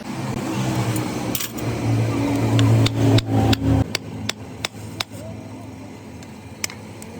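Hammer blows on hot steel as a blacksmith forges an axe blade: sharp, irregular strikes. A machine motor hums steadily under them and cuts off about four seconds in.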